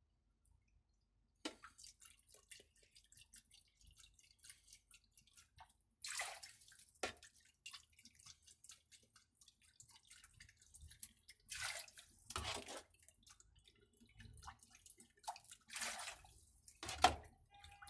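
Liquid poured from a measuring cup into a wok of hot broth, in several short splashing pours, with small ticks and drips between them.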